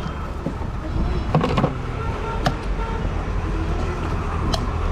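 Steady low rumble of street traffic, with a few sharp metallic clinks of a steel spoon and knife against a steel tumbler while aloo muri is mixed.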